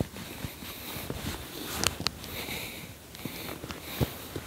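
Close handling noise from an angler's clothing and fishing gear: soft rustling with a couple of sharp clicks about two seconds in and a duller knock near the end.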